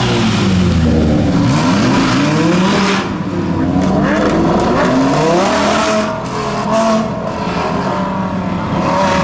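Lamborghini Huracán's 5.2-litre V10 through a custom Capristo exhaust, revving up and down in repeated rising and falling sweeps, with a few sharp crackles as the revs drop around six seconds in.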